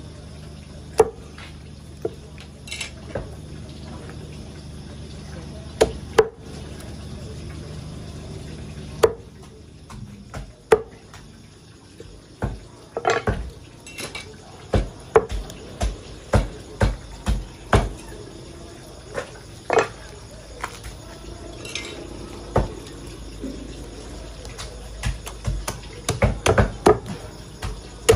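Meat cleaver chopping whole raw chickens into pieces, blade striking through meat and bone into a wooden chopping block. Irregular strikes, a few spaced apart at first, then coming in quick runs from about halfway.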